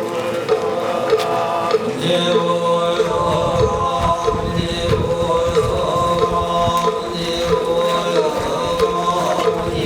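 Buddhist chanting set to music: a steady sung melody with a short note repeating about twice a second. A low irregular rumble, like wind on the microphone, joins about three seconds in.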